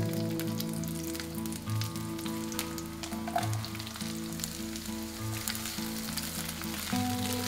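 Chopped onion and red bell pepper sizzling in hot oil in a nonstick frying pan: a steady hiss with many small crackles and pops.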